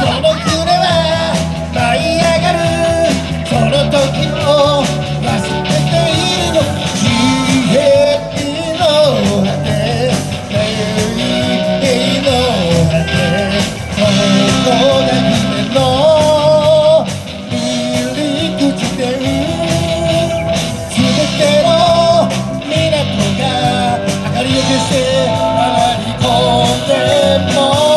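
Live rock band playing through PA speakers: a singer's voice over guitars, keyboard, bass and drums.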